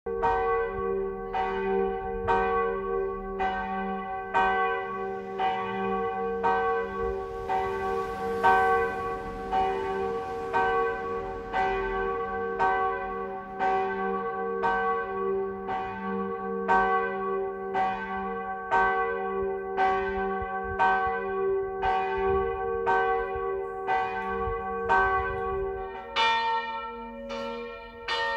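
Church bells pealing: several bells ring together, with strikes a little under once a second over a deep, lasting hum. Near the end the deep hum drops away and the ringing thins.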